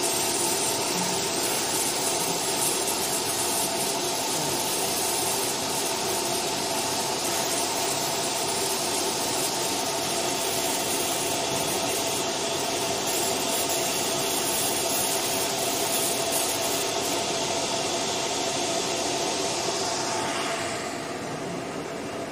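A 30W fiber laser marking machine running as it marks a silver plate: a steady whirring hiss with a faint hum in it. It becomes noticeably quieter near the end.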